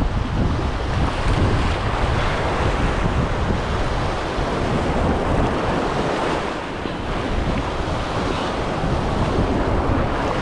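Sea waves washing and breaking around rocks in the shallows, with wind buffeting the microphone in a steady low rumble.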